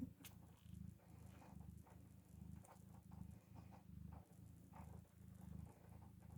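Cat purring, a low hum that swells and fades in a steady rhythm, with faint small clicks over it.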